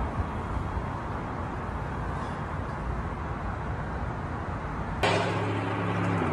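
Steady low background rumble of a city street, picked up by a phone's microphone, with no clear single event. About five seconds in it cuts abruptly to a different steady low hum.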